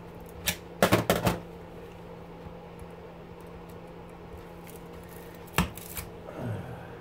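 Pliers clicking and clinking against a small electric motor's steel stator while its copper windings are pulled out: a quick cluster of sharp metallic clicks about a second in, and two more single clicks near six seconds. A steady low hum runs underneath.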